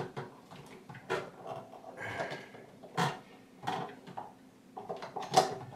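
Plastic casing of a water ionizer being handled as its top cover is worked loose and pulled off: a handful of short clicks and scrapes, the loudest near the end.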